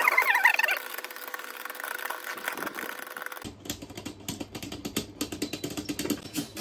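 Beyblade Burst spinning tops whirring and clashing in a plastic battle stadium: a wavering whine in the first second, then from about halfway a fast run of rattling clicks as the tops knock together.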